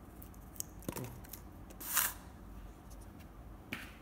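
Handling noise from a feather shuttlecock and its cardboard tube: a few light clicks and taps, with a brief scrape about two seconds in and a shorter one near the end.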